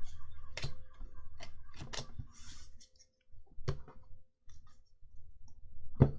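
Pokémon trading cards and packs being handled on a table: scattered light clicks and taps with a brief rustle, a quiet gap about halfway, and a sharper tap near the end.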